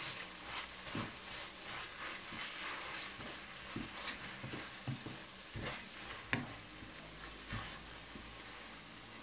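Wooden spoon stirring spinach and bell peppers cooking in cream in a frying pan, with a faint steady sizzle and irregular light scrapes and taps of the spoon on the pan, one sharper knock about six seconds in.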